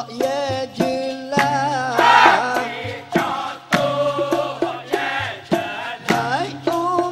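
Dikir barat performance: a lead singer's ornamented solo singing alternates with a male chorus that sings and claps in unison, over percussion striking a steady beat.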